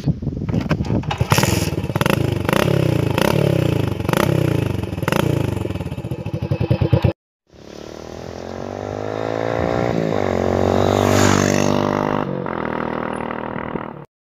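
Hero Splendor Plus single-cylinder four-stroke engine revved in quick repeated throttle blips through a modified 'kad-kad' silencer with its inner piece pulled out, sharp cracks coming off the exhaust at each blip. After a short cut, the bike's engine note rises in pitch and loudness to a peak and then falls away, as in a pass-by.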